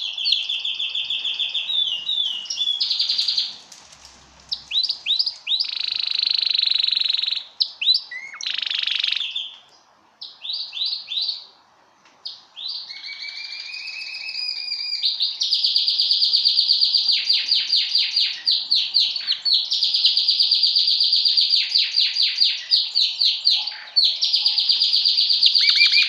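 Male yellow domestic canary singing: long runs of rapid, high trills and rolls. The song breaks off briefly a few times in the first half, then runs on almost without a pause.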